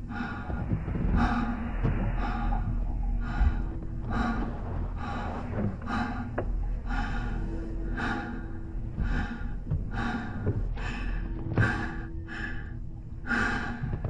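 A cosmonaut in a spacesuit breathing hard, in loud repeated gasps that come quicker near the end, over a steady low rumble.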